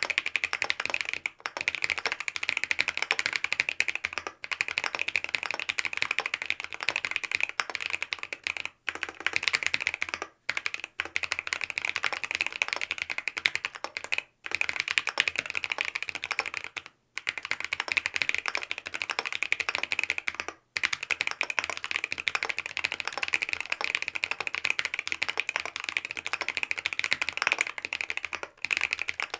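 Continuous typing on a Mont Cervin custom mechanical keyboard with lubed BSUN OG Holy Panda tactile switches on a polycarbonate plate damped with foam, and Key Kobo keycaps: a dense run of keystrokes, broken by a few brief pauses.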